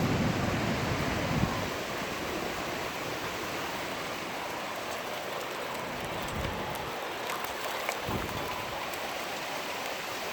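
Steady hiss of rain mixed with hail and sleet falling, under the tail of a thunder rumble that dies away in the first second and a half.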